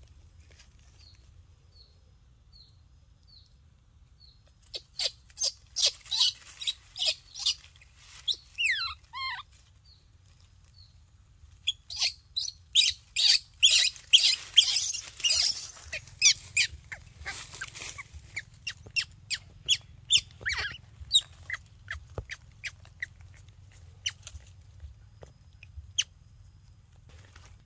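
Dry fallen leaves crackling and rustling in irregular bursts as a baby monkey rolls and wriggles in them, with a few quick falling squeaks from the monkey about nine seconds in. Faint, evenly repeated high chirps come before the first burst.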